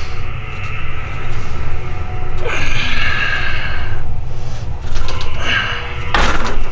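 A man's forceful breaths and exhales, loudest in a burst near the end, over a steady low rumble.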